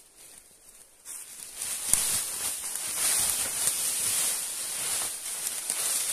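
Dry leaves rustling and crunching underfoot on a steep slope, starting about a second in, with a sharp snap or crack near two seconds.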